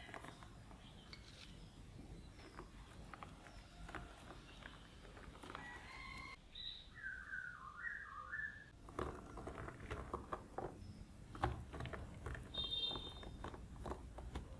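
Soft taps and rustles as chopped green onions and then shredded mozzarella are scattered by hand onto rolled-out bread dough, the taps growing denser in the second half. Small birds chirp a few times in the background.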